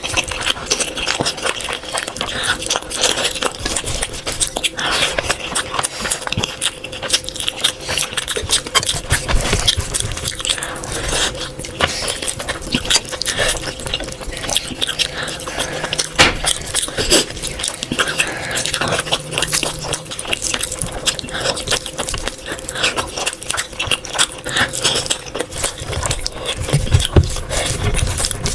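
Close-up eating sounds: chewing, with a dense run of small clicks and scrapes of food on a plate, over a faint steady hum.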